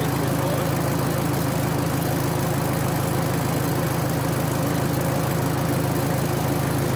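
Miniature railway locomotive's engine running with a steady, even low drone.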